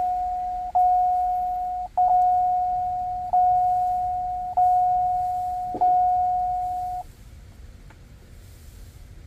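GMC Sierra/Chevy Silverado warning chime repeating with the key on: a single steady tone struck about every 1.2 seconds, each fading before the next, stopping about seven seconds in. It is the warning chime that sounds once the factory radio harness is unplugged and keeps going until the key is pulled.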